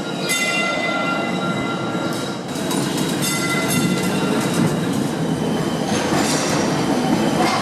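Christchurch heritage tram running on its rails: a steady rumble with the steel wheels squealing in several high tones, and from about halfway in a run of clicks and clatter from the wheels over the track.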